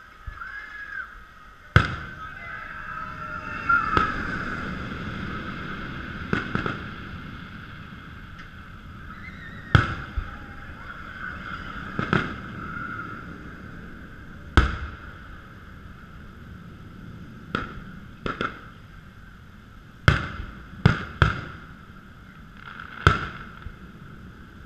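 Aerial firework shells bursting: about a dozen sharp booms spread out, with three coming in quick succession a little over three-quarters of the way through.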